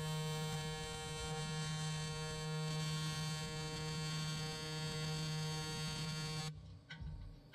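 AC TIG welding arc on aluminium, a steady buzzing hum that cuts off about six and a half seconds in when the arc is broken.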